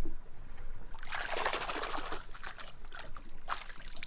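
Water splashing as a released muskie kicks free of the hand at the surface and swims off: a burst of splashing about a second in, then a smaller splash near the end.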